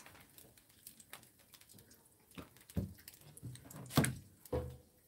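Scattered light clicks and knocks of a utensil stirring and tapping in a glass mixing bowl of thick kimchi pancake batter, with a sharper clink about four seconds in.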